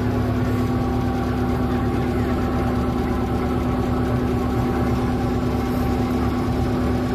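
Small open tour boat's engine idling steadily while the boat is tied up at the pontoon: a constant low hum with an unchanging pitch.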